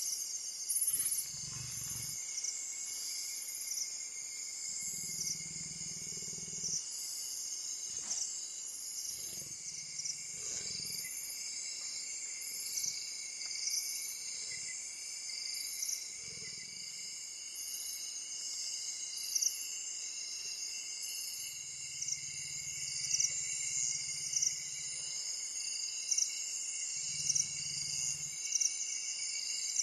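A night chorus of insects: a steady high buzzing with regular short chirps about once a second. Over it come several low rumbles, each lasting one to three seconds.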